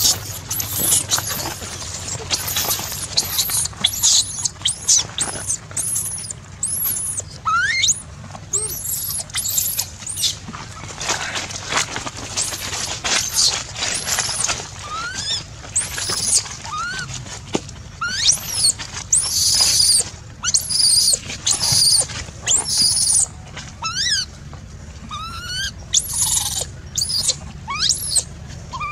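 Infant macaque squealing and screaming again and again in short, high-pitched cries that come in quick runs with brief gaps.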